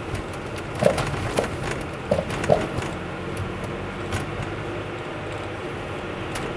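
Knocking from an RS-R Best-i coilover on a 10-series Alphard Hybrid: four or five sharp clunks in the first three seconds over steady road noise, then a few lighter ticks. The noise turned out to come from a loose upper top nut on the coilover.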